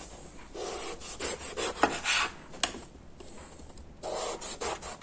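Chef's knife slicing lengthwise through a peeled eggplant in several drawn strokes into thin slices, with two sharp taps as the blade meets the plastic cutting board.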